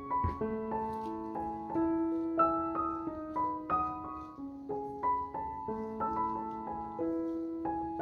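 Background piano music: a gentle melody of single held notes, a new note every half second or so.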